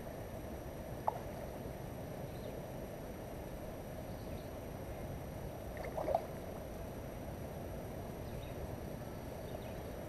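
Steady low rushing outdoor noise, with a sharp click about a second in and a short louder burst about six seconds in.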